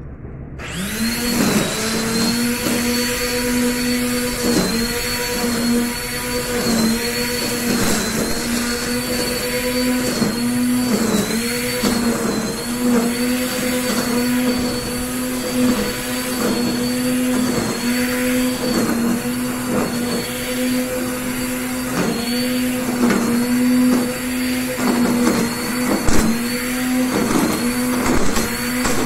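Black & Decker GrassHog 800 W electric string trimmer spinning up about half a second in, then running steadily with a high whine. Its pitch dips briefly every second or so as the nylon line bites into the overgrown grass.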